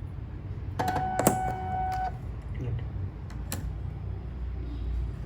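Electronic beep from a Finecare progesterone analyzer, one steady tone lasting a little over a second, with a sharp click during it. Another click follows about two seconds later, as buttons are pressed to start the test.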